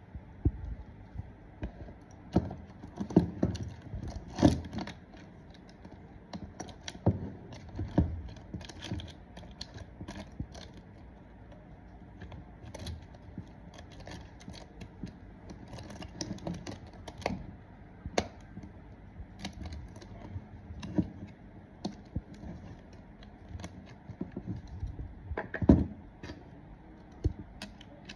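Metal saw chain clicking and rattling in irregular small bursts as it is fitted around a mini chainsaw's guide bar and drive sprocket, with light knocks of the bar against the tool's body. A few louder knocks come about four seconds in and again near the end.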